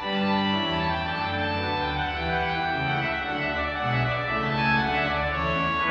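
Kegg pipe organ playing sustained chords over a moving bass line, the notes changing about every half second to a second.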